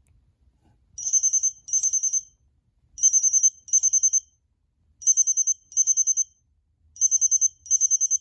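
Cingular 8525 Pocket PC phone playing a high-pitched electronic double-ring ringtone. Starting about a second in, four pairs of short, fast-trilling bursts come about every two seconds, in the pattern of a classic telephone ring.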